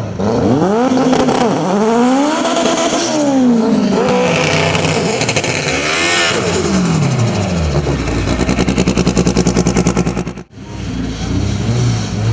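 Turbocharged Honda Civic drag-car engine revving hard, its pitch rising and falling in repeated sweeps. It then holds a rapid, even stutter for about two seconds, and the sound briefly cuts out near the end.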